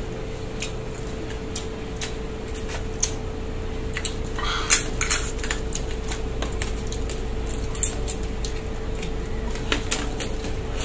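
Scattered clicks and clinks of steamed mud crab being cracked and picked apart at the table, with a short crunch about four seconds in, over a steady low hum.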